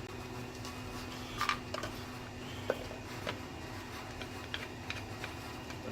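Scattered light clicks and taps of a loudspeaker midrange driver and its plastic back cup being handled and fitted back in, over a steady low hum from a running furnace.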